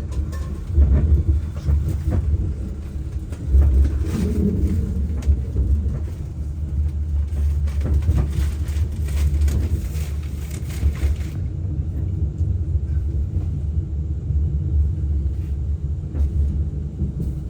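Deep, uneven rumble of a railway train, with scattered clicks and rattles in the middle, where a hiss cuts off abruptly about two-thirds of the way through.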